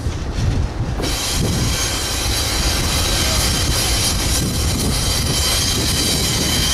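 Lead diesel locomotives of a loaded freight train rumbling past close by, with wind on the microphone. About a second in, steel wheels on rail come in loud with a thin high squeal.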